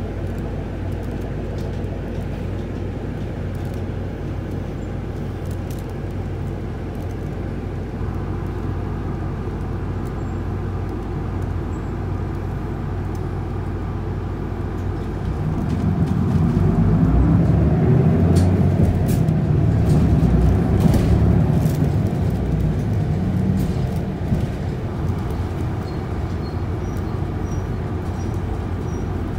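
Inside the cabin of a moving Isuzu Erga city bus (PKG-LV234L2): the inline-six diesel engine hums steadily under road noise. It grows clearly louder for several seconds around the middle, then settles back to the steady hum.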